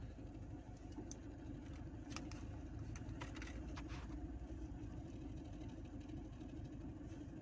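Steady low background hum, with a few faint clicks and rustles from the plastic blister pack and the metal pen drive being handled, mostly in the first four seconds.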